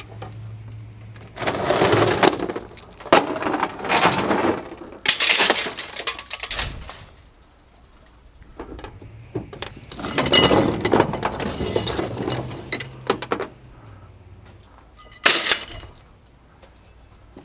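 Scrap metal items tossed off a truck onto a junk pile, landing in several loud crashes and clatters, with a lull in the middle.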